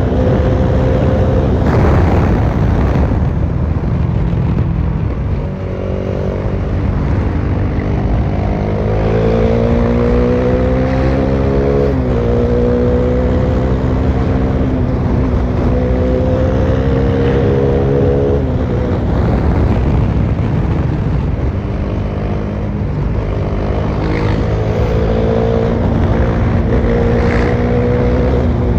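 Bajaj Dominar 400's single-cylinder engine, exhaust open with no muffler, running at highway speed. Its note climbs in pitch under acceleration and drops back at gear changes about twelve seconds in and again about eighteen seconds in, then climbs again near the end.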